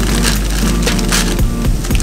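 Background music, with the crinkling of a plastic bag of vegetables being handled and opened.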